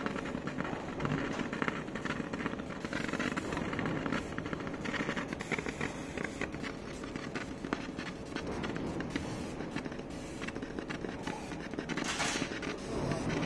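100 W CO2 laser marking machine engraving a pattern into blue card stock: a steady stream of dense rapid clicking over a faint steady hum, with a brief hissing surge near the end.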